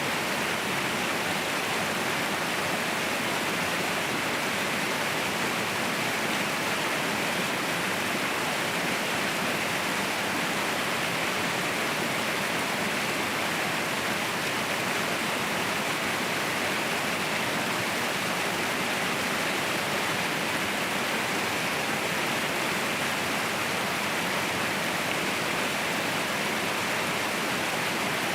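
Waterfall rushing steadily, an even hiss with no breaks or changes.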